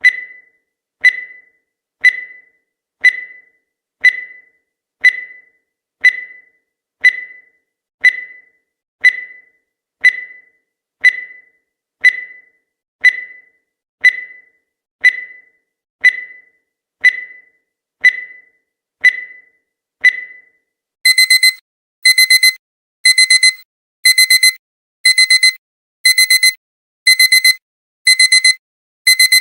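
Countdown timer sound effect: a short, high tick once a second for the last seconds of the count. About 20 seconds in, the count reaches zero and a digital alarm-clock alarm starts, bursts of rapid pulsing beeps repeating about once a second.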